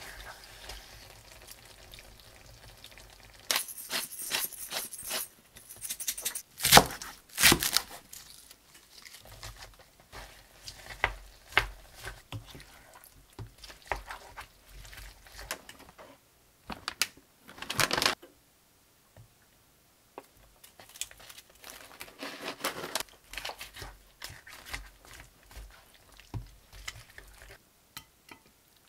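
Wooden spatula stirring and turning thick, saucy seafood and vegetables in a nonstick frying pan: irregular scrapes and wet stirring noises with short pauses between strokes.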